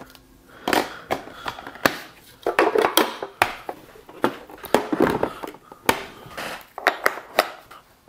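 Parts of a Ninja drip coffee maker being fitted back on: the filter basket, the plastic water reservoir and the glass carafe set into place with a series of irregular knocks, clicks and clunks.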